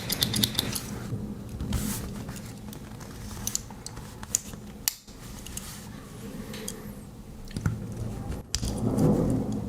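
Small metal clicks and snips from the spring-loaded scissors of a Victorinox Alox Swiss Army knife being opened and worked. A quick run of clicks comes in the first second, then a few single clicks as the tools are handled.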